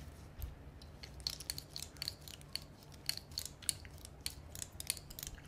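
Gum chewed close to the microphone: a quick, irregular run of sharp wet clicks and smacks, getting busier about a second in.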